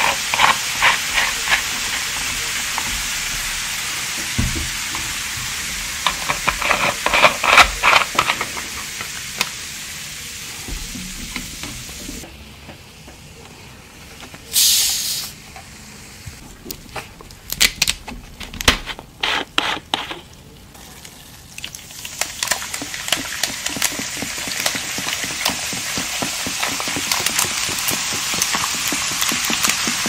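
Carbonated soda fizzing: a steady crackling hiss of bursting bubbles, dotted with small clicks. It dies down for a while, and a short, sharp hiss comes about halfway through. The fizzing then builds up again.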